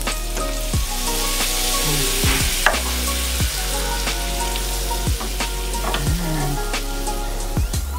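Melted butter sizzling in a small stainless steel pan as flour is stirred into it with a wooden spatula, the spatula knocking and scraping against the pan now and then.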